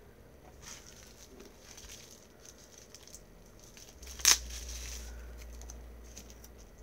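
Soft crinkling and rustling of wrapping as a small perfume bottle is unwrapped by hand, with one sharp crackle about four seconds in, followed by a low rumble of handling.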